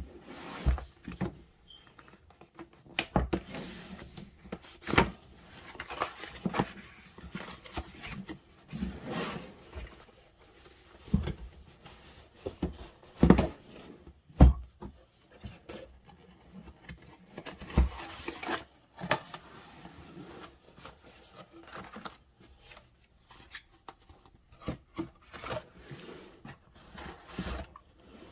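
Cardboard box and packaging being handled and opened: irregular rubbing and rustling, with scattered knocks and thuds as parts are lifted out and set down.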